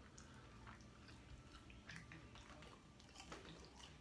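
Faint chewing and crunching of crisp, Hot Cheetos-coated fried chicken, with scattered small crackles and clicks.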